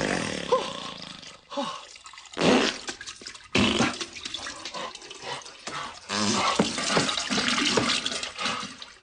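A broken toilet flushing, its water gurgling and churning in uneven surges that stop and start.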